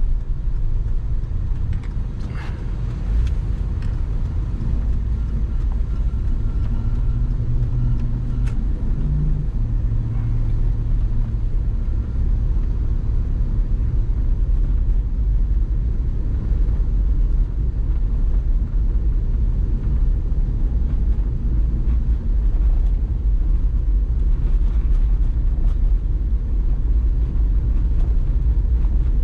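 Steady low rumble of a GMC Yukon driving through snow on an unplowed road, engine and tyre noise heard from inside the cab.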